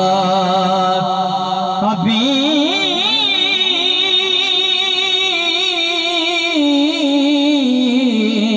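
A man sings a devotional Islamic durood (salutation on the Prophet) into a microphone, drawing it out in long held notes. About two seconds in he moves to a new phrase with a wavering, ornamented pitch.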